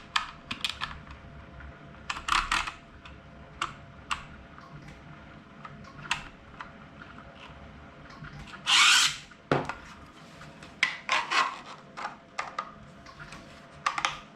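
3D-printed plastic cryptex parts clicking and knocking irregularly as they are handled and fitted together, with one brief scraping rush about nine seconds in.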